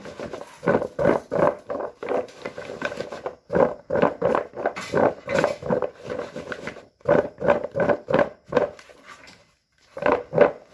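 Raw potato sticks tossed with flour and tapioca starch, shaken in a plastic bowl to coat them: a quick, uneven run of rattling thumps, about two or three a second, breaking off briefly near the end before starting again.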